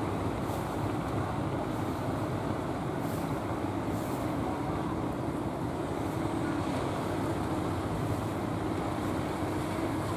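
Steady rush of wind and choppy sea, with a low, steady drone that fits the inboard engine of a wooden fishing boat motoring in through the waves.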